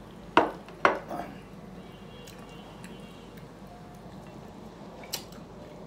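Sharp clinks of china as food is tipped from a small serving plate onto a plate of rice: two loud knocks about half a second apart, a lighter one just after, and another near the end.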